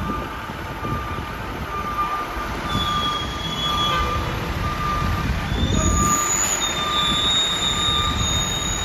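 Fire engine reversing into its bay: the backup alarm beeps about every two-thirds of a second over the rumble of the diesel engine. High brake squeals come in from about three seconds in and again in the second half.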